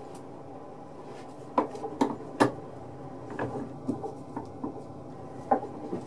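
Hard wood-and-metal knocks and clunks as a small cast-iron drill press vise with wooden jaw blocks is handled and set around a brass rod: three sharp knocks in quick succession about a second and a half in, then softer, scattered clunks.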